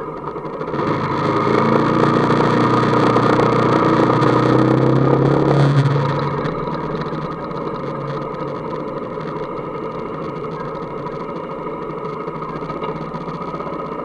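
Motorcycle engine pulling harder as the bike speeds up, its pitch rising, with wind rushing over the microphone. About six seconds in it eases off to a steady, quieter running at low speed.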